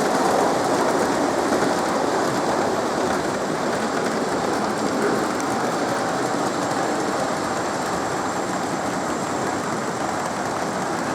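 Model train running along a layout's track: a steady rolling rattle of wheels on rail.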